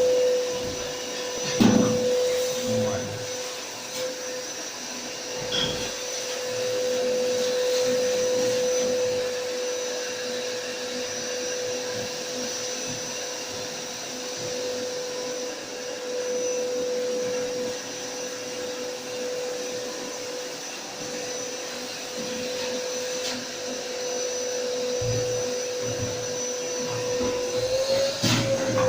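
An electric motor running steadily with a constant whine, rising slightly in pitch near the end. A few knocks sound over it, the loudest about two seconds in.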